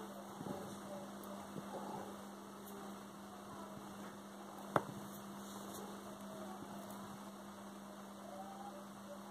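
Steady electrical hum from the running high-voltage resonant transformer setup, with a single sharp click near the middle.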